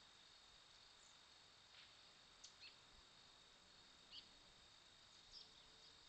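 Faint outdoor background: a steady high-pitched insect drone, like crickets trilling, with several short, high chirps scattered through it.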